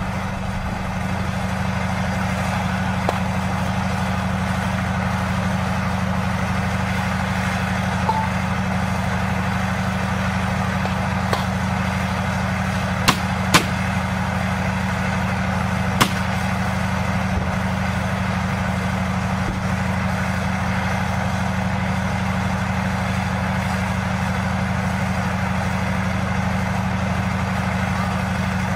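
Tank's diesel engine idling steadily close by, a loud low drone, with a few single sharp cracks of gunfire, the loudest two close together about 13 seconds in and another about 16 seconds in.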